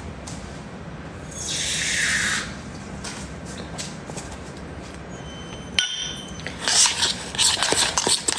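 Water pouring into a bowl for about a second, starting a little over a second in. Near the end comes a quick run of clinks and clatter from kitchenware.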